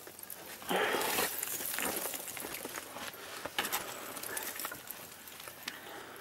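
Scuffing and rustling of a climber's protective suit and boots against ice and rock as he lowers himself down on a rope, with scattered scrapes and knocks. A brief louder burst of noise comes about a second in.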